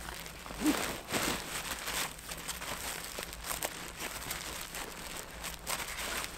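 Irregular crinkling and rustling handling noise, with a few sharper crunches about a second in.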